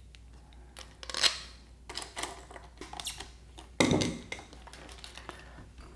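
3D-printed plastic parts and a screwdriver being handled on a work table: a run of clicks and knocks, with a sharp knock just over a second in and a heavier thump at about four seconds.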